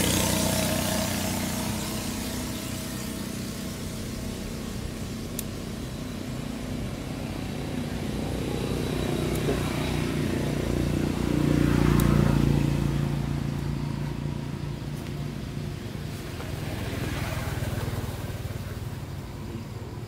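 Motor vehicle engines running nearby, a steady low hum that swells as a vehicle passes about twelve seconds in and again a few seconds before the end.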